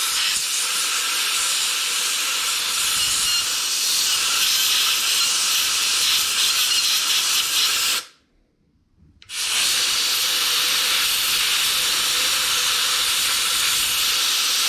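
Compressed air hissing as it is blown into a motorcycle's handlebar clutch switch to clear the dirt that keeps the bike from starting in gear. It comes in two long, steady blasts with a pause of about a second some eight seconds in.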